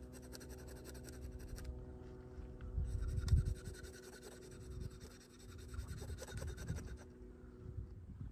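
Knife scraping scales off a whole fish in two spells of quick, repeated strokes, with a low rumble about three seconds in.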